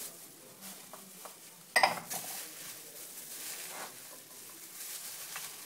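Gloved hands tossing chopped potato, spinach and onion in a glass bowl: a soft rustling of the vegetables, with one sharp knock a little under two seconds in.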